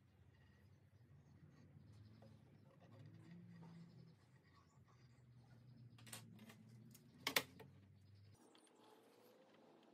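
Faint scratching of a drawing compass's pencil tracing a circle on a pine board, then two sharp clacks about six and seven seconds in, the second the loudest.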